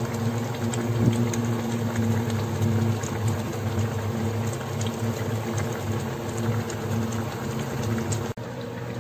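Sinigang soup boiling in a steel pot, a steady bubbling with small pops, over a steady low hum. The sound dips briefly near the end.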